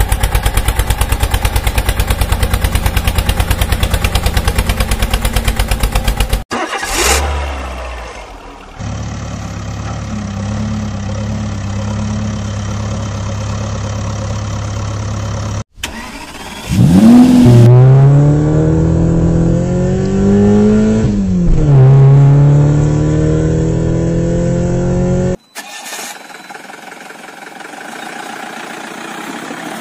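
Vehicle engine sounds in several cuts. First an engine running with a fast, even pulse for about six seconds, then a steadier engine hum. In the middle an engine revs up and down several times, and it ends quieter.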